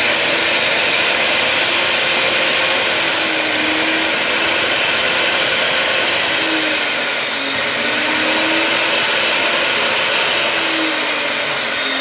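Cut-off chop saw's universal brushed motor running steadily at full speed with its blade spinning free, not cutting.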